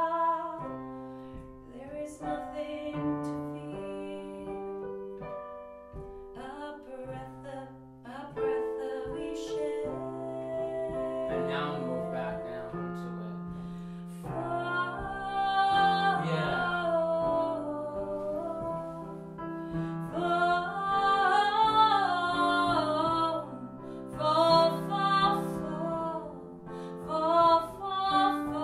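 Piano chords played on a keyboard, sustained and changing every second or two. A woman's singing voice joins over the piano about halfway through.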